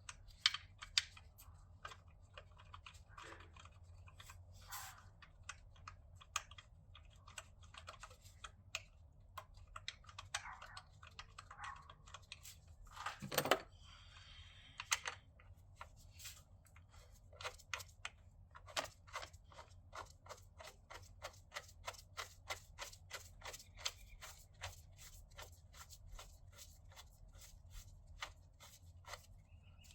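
Socket ratchet clicking as the intercooler hold-down bolts are ratcheted down, in short scattered runs at first and then a steady stream of quick clicks through the second half, with one louder knock about 13 seconds in.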